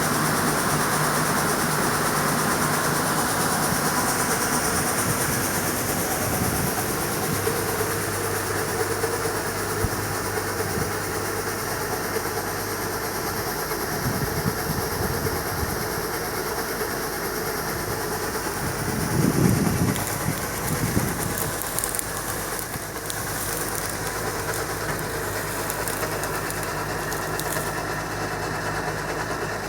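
New Holland 8060 combine harvester running, a steady mechanical drone with clatter and hiss, swelling briefly about two-thirds of the way through.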